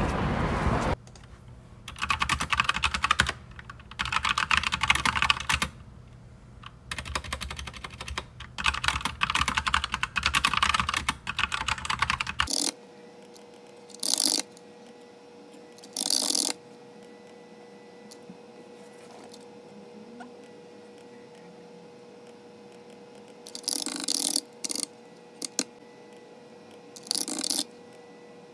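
Typing on a computer keyboard: long runs of rapid key clicks with short gaps, then later only a few brief bursts of keystrokes.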